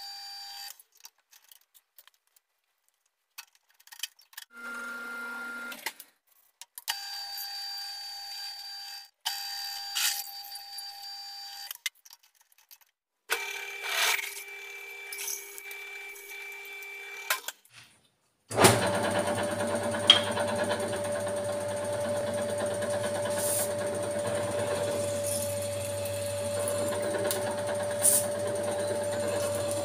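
Pillar drill running and boring a metal plate with a twist drill, with a steady whine. It is heard in several short stretches broken by silent gaps, then runs continuously with a low hum from about 18 seconds in.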